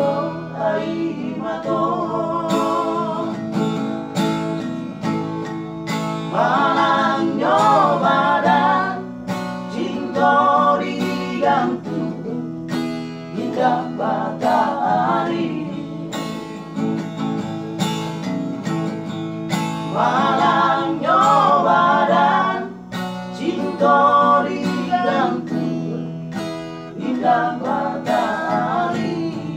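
Men singing a Batak song to a strummed acoustic guitar, the voices coming in phrases of a few seconds with the guitar carrying on between them.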